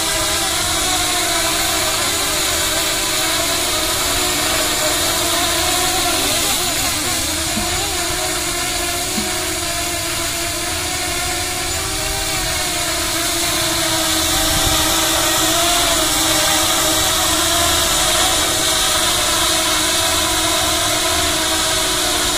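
Seven-inch FPV quadcopter's brushless motors and propellers running as it hovers low, a steady layered buzzing whine that wavers in pitch about six to eight seconds in and grows a little louder later on.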